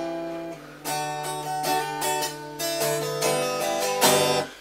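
Small Snap Dragon travel guitar played acoustically, unplugged: strummed chords with single notes ringing between them, a full strum about a second in and another near the end.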